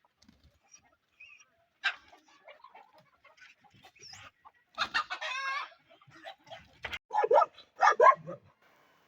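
Desi chickens clucking and calling in short, separate bursts, with one longer held call about halfway and the loudest run of calls near the end.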